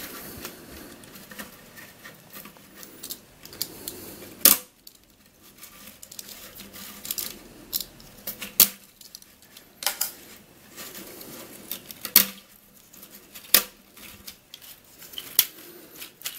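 Thin struts of a black-dyed 3D-printed plastic cage snapping and clicking as it is broken open by hand, with irregular sharp snaps, the loudest about four and a half seconds in, and rubbing and rattling of the lattice between them.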